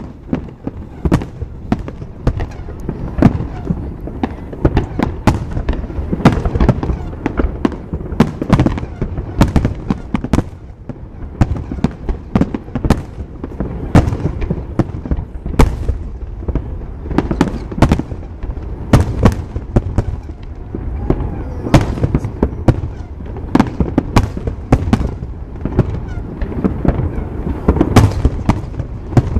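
Aerial fireworks shells bursting: a rapid string of sharp bangs, about one or two a second, over a steady low rumble.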